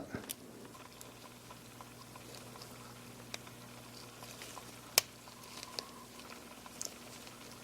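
Faint handling of small plastic parts of a compact camera's lens unit as its outer plastic ring is turned: scattered light clicks, with one sharper click about five seconds in.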